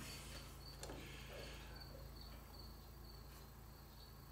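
Near silence: workshop room tone with a steady low hum and a faint, high, thin tone that comes and goes, plus one light click about a second in.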